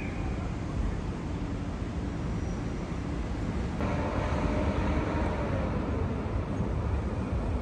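Outdoor city traffic noise with wind rumbling on the microphone. About halfway through the sound changes abruptly and a passing vehicle's hum falls slowly in pitch.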